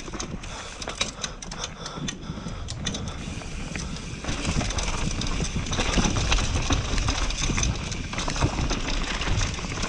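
Mountain bike descending a dirt singletrack: tyres rolling over loose dirt and leaves, with many small rattles and knocks from the bike. It gets louder about four seconds in.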